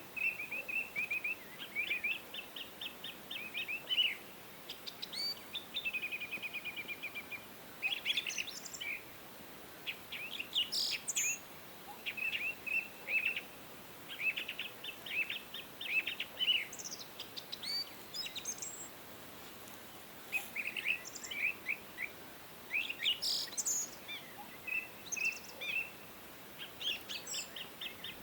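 Several songbirds singing and chirping in quick trills and short high notes, one after another, over a steady hiss of flowing stream water.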